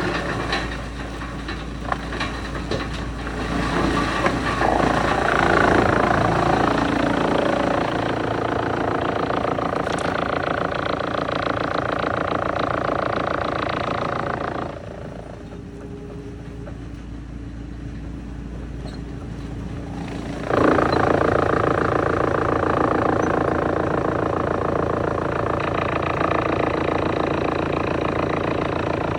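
Wood chipper running with continuous heavy machine noise. The sound drops abruptly about halfway through, then comes back just as suddenly about six seconds later.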